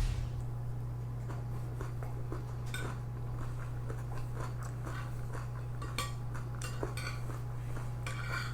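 Close-up eating sounds: chewing and biting on stir-fried pork spare ribs, with scattered small clicks and clinks of utensils and dishes. A steady low hum runs underneath.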